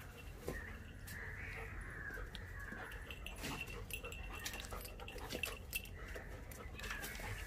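A German shepherd puppy whining faintly and high-pitched as it sniffs at a balloon, with scattered light clinks from its metal chain leash.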